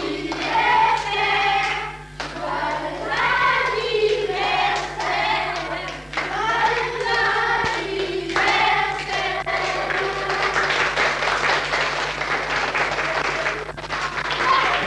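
A group of children singing a birthday song together in short phrases, then clapping for about the last five seconds.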